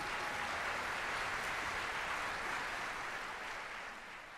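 Audience applauding, a dense steady clatter of clapping that tapers off near the end.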